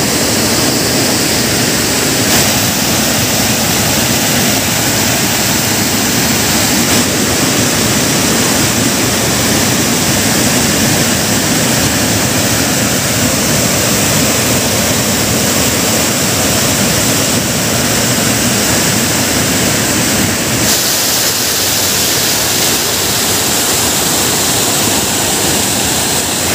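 Water pouring over a lake's overflow weir in a steady, loud rush.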